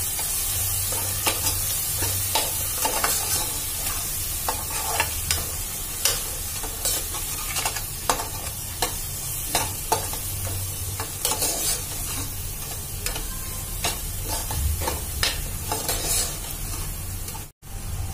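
Onion-tomato masala with ground spices sizzling in oil in a pressure cooker pot, stirred with a steel spoon that scrapes and taps against the pot at irregular moments. The sound cuts out briefly near the end.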